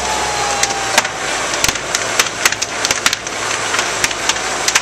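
A fully involved house fire crackling and popping: irregular sharp cracks, several a second, over a steady rushing noise, with a fire engine's engine running low underneath.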